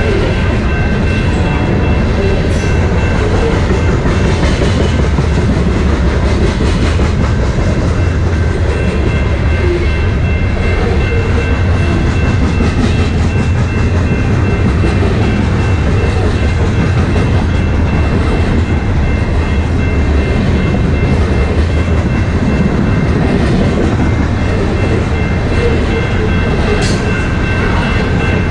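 BNSF coal train rolling past at steady speed: a loud, even rumble of steel wheels on the rails, with faint steady high-pitched ringing tones over it.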